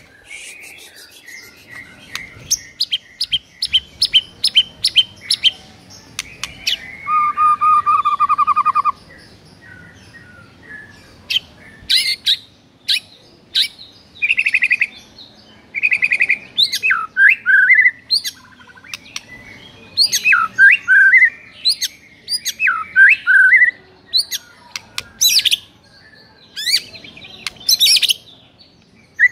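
White-rumped shama (murai batu) singing a varied song: a run of repeated sharp notes, then a low buzzy trill, then whistled phrases with sharp rising notes and short pauses between them.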